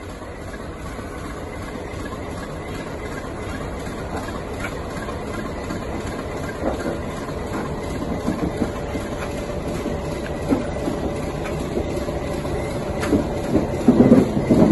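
ALCO diesel locomotive hauling a loaded ballast train at walking pace, its engine running and growing louder as it approaches. Near the end the wheels clank and knock as the locomotive rolls onto a short steel girder bridge.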